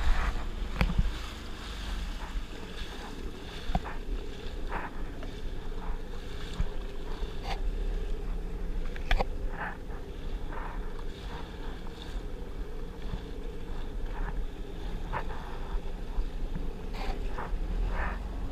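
Sea-Doo jet ski's engine running steadily, with water slapping against the hull in many short splashes and wind on the microphone.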